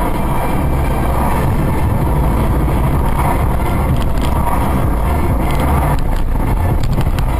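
Steady low road and engine rumble of a moving car, heard from inside the cabin through a dashcam's microphone.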